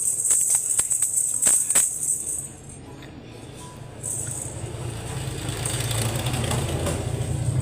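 Background music with tambourine-like jingling and sharp clicks for the first couple of seconds, then a steadier low hum that grows toward the end.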